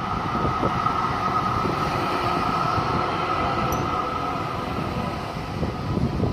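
Melbourne B2-class tram passing close by with a low rumble and a steady high whine, both easing near the end as it moves away.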